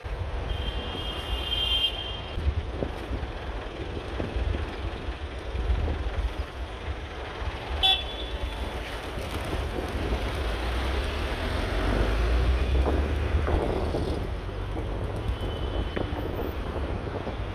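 Road traffic with a steady low rumble, and a short, high car-horn toot in the first two seconds. A sharp click sounds about eight seconds in.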